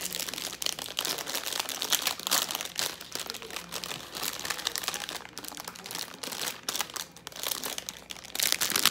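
Thin plastic wrapper crinkling as it is peeled off an ice cream cone, an irregular crackle that gets louder near the end.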